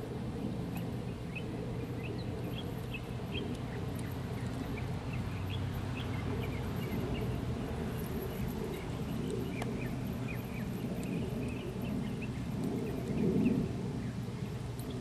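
Outdoor ambience: a steady low rumble with small birds chirping on and off, and a brief louder rumble near the end.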